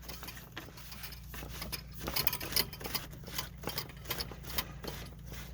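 Irregular small clicks and scrapes of an irrigation pipe union being handled and screwed back together, its O-ring gasket seated, over a steady low hum.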